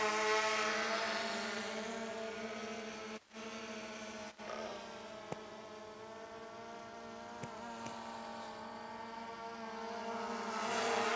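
DJI Phantom 2 quadcopter's electric motors and propellers buzzing at a steady pitch in flight, quieter in the middle and louder again toward the end. The sound drops out briefly twice, a few seconds in.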